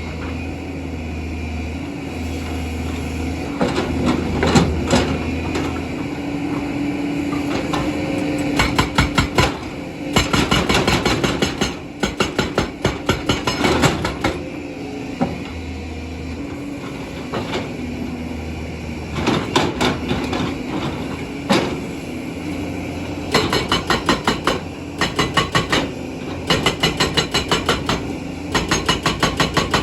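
JCB excavator breaking stone with a hydraulic rock breaker: bursts of rapid, even hammer blows, about six a second, separated by short pauses, over the excavator's diesel engine running steadily.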